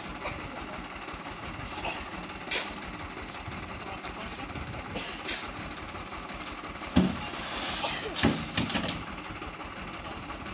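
A hoe scraping and knocking through heaped sand and soil at a dump truck's tailgate, a dozen sharp strokes, the busiest near the end, over the steady hum of the truck's idling engine.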